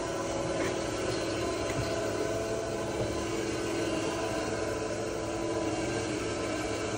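Steady machine hum with a few held tones over a noisy drone, even throughout.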